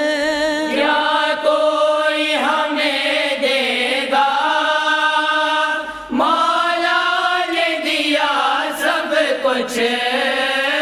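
Urdu devotional song: singing voices hold long, wavering, sliding notes on a vowel between lines of lyrics, with a new phrase starting about six seconds in.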